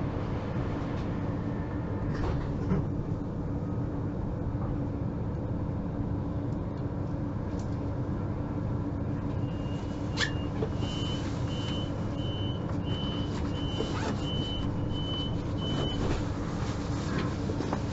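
Interior of a DB class 442 (Bombardier Talent 2) electric multiple unit: the steady hum of its onboard equipment with a low constant tone. About halfway through, a sharp click comes, then a rapid series of short, high beeps that lasts about six seconds, typical of the door-closing warning.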